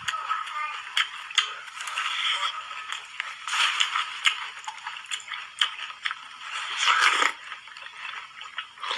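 Ice crunching and crackling as a large frozen ice ball is bitten and chewed: a steady string of sharp cracks and crunches, thin-sounding with little low end, with a denser burst of crunching around seven seconds in.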